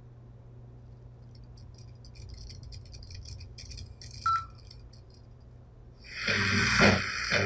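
Old newsreel soundtrack starting up: a low steady hum and faint crackling film noise, a short beep about four seconds in, then loud newsreel opening music from about six seconds in.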